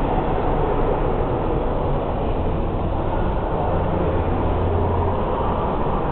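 Steady ambience of a large railway station hall: a continuous rumbling noise with a low drone that grows stronger for a couple of seconds in the middle.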